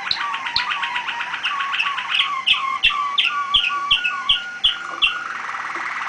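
Domestic canary singing: a fast rolling trill, then a run of repeated sharply falling notes at about three a second that stops about five seconds in, followed by a softer, buzzier passage.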